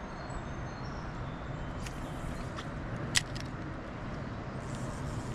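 Steady low outdoor background noise with a single sharp click about three seconds in.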